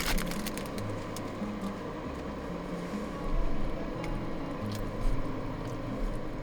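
Soft background music with a stepping bass line, over light cooking-handling sounds: a few small clicks and a soft squishing noise.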